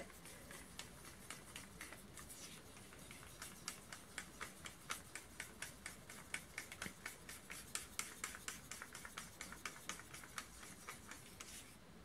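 Wooden craft stick stirring white acrylic pouring paint, thinned with water and Floetrol, in a plastic cup: faint, quick clicks and scrapes of the stick against the cup, a few a second.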